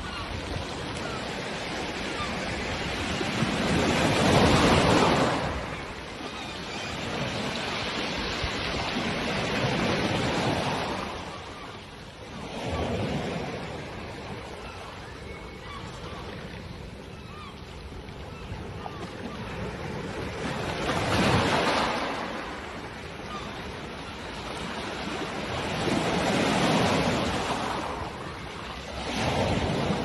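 Sea waves breaking on a pebble beach and washing back, swelling into a loud surge every few seconds, the loudest about four seconds in.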